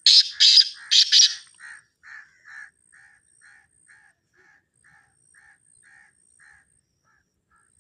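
A francolin (teetar) calling. It gives a few loud, harsh notes at the start, then a run of softer repeated notes, about two a second, that fade out.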